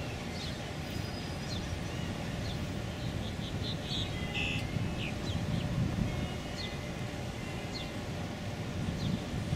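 A steady low rumble with many short, high bird chirps and brief whistles scattered through it.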